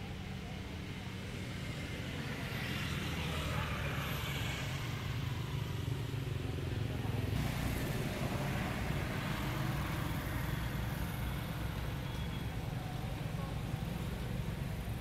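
A motor vehicle engine running with a steady low rumble that grows louder over the first two seconds or so, then holds.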